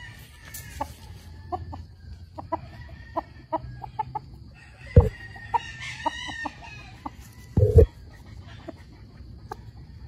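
Blue Face Hatch gamecock clucking in short soft notes, with a rooster crowing faintly about six seconds in. Two brief dull thumps, about five and nearly eight seconds in, are the loudest moments.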